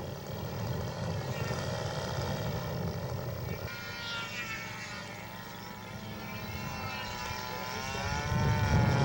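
Radio-controlled scale Heinkel He 100 model's engine and propeller running as it taxis. Its note wavers, then rises and grows louder toward the end as the throttle opens for the takeoff run.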